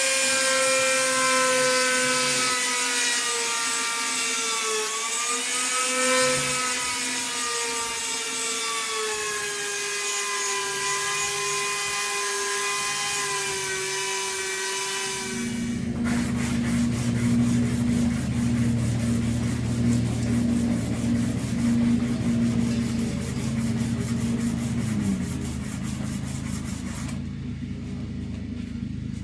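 Small electric power tool running with its abrasive sanding steel: a high whine that sags and recovers in pitch as it bears on the work. About halfway through it gives way suddenly to a lower-pitched motor whine with rough rubbing, which drops in pitch near the end.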